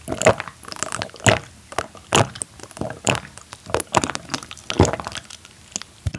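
Close-miked gulping of a drink from a glass mug: repeated wet swallows, about one a second.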